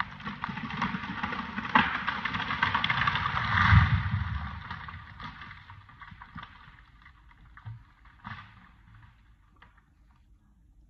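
Dead Douglas fir falling: wood cracking and branches crashing through the surrounding trees, building to a heavy thud as the trunk hits the ground about four seconds in, then scattered snaps of settling debris as it dies away.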